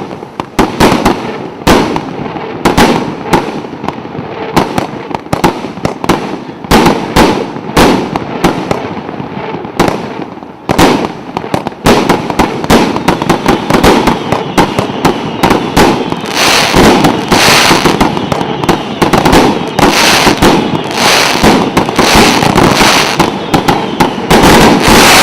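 A 49-shot 1.2-inch fireworks cake battery firing a rapid series of shots and aerial bursts. From about halfway through the shots come much denser and merge into near-continuous crackling, as the crackling-glitter effects and the closing volley go off.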